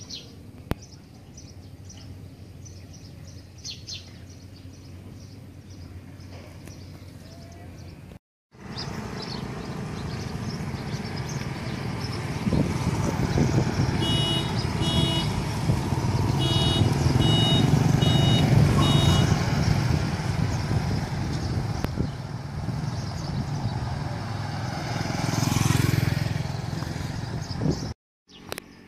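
Motorbike and road traffic noise, steady and loud, with a string of short, high, evenly spaced beeps in the middle and a vehicle passing close near the end. Before it comes a quieter outdoor stretch with faint chirps.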